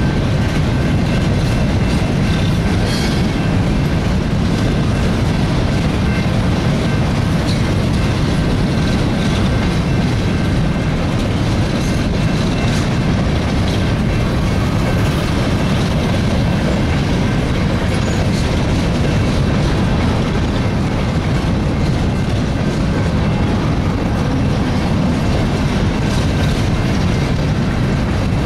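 Freight train of open-top hopper cars rolling past at close range: a steady, unbroken rumble of steel wheels on rail, with a faint thin high ringing and a few light clicks.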